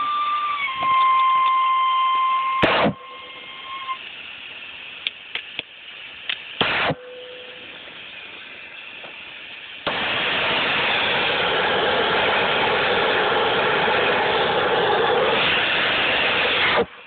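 Loud, steady hiss of gas rushing from a hose-fed rail-welding torch. It starts abruptly about ten seconds in and cuts off suddenly near the end. Before it there is a steady whistling tone that drops slightly in pitch and fades, and two sharp knocks.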